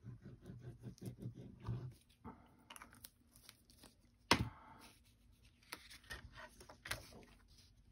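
Paper handling on a cutting mat: quick scratchy strokes as a glue pen is scribbled over cardstock, then cardstock rustled and slid about, with one sharp tap about four seconds in and a couple of lighter taps later.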